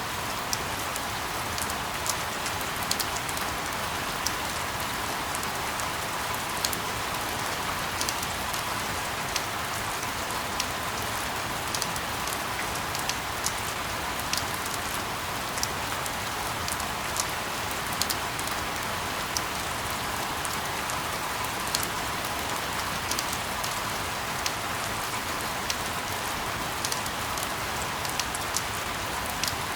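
Steady rain falling: an even hiss with many scattered sharp ticks of individual drops.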